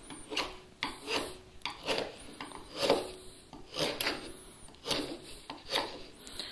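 Freshly sharpened 1/2-inch bench chisel paring slices off the end grain of a softwood board by hand: a quick run of short slicing strokes, each a brief rasp, showing the edge is sharp.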